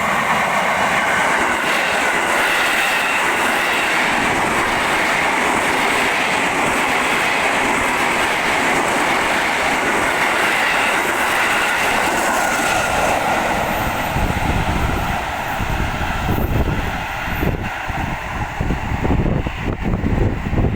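A KRL Commuter Line electric multiple-unit train passes close by with a steady loud rush of wheel and rail noise. From about two-thirds of the way in, a heavy low rumble takes over, with irregular thumps as the wheels run over the rail joints.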